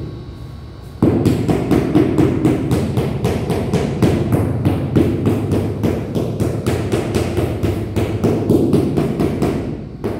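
Rubber mallet tapping rapidly on a large ceramic floor tile, about four dull knocks a second starting about a second in, bedding the tile down into the mortar.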